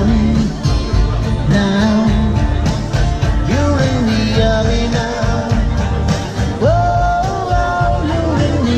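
A man singing into a microphone while strumming an acoustic guitar; about two-thirds of the way through he slides up into a long held note.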